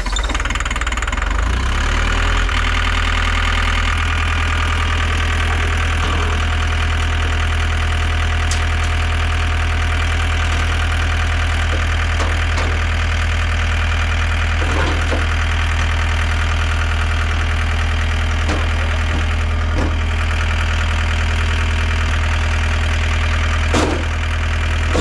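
2014 John Deere 323D tracked skid steer's diesel engine idling steadily, just started on a new battery. Its note shifts and settles in the first few seconds. A few short knocks sound over it, the loudest near the end.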